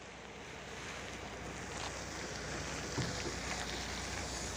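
Wind buffeting the microphone over the low, steady running of a diesel bus engine, fading in over the first second, with a short knock about three seconds in.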